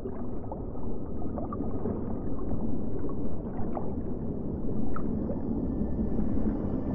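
Underwater ambience: a low, muffled rush of water with scattered small clicks and gurgles, heard through a camera's microphone underwater.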